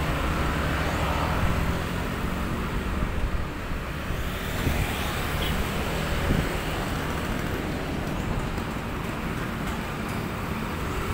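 Hino coach's diesel engine idling steadily, with street traffic passing.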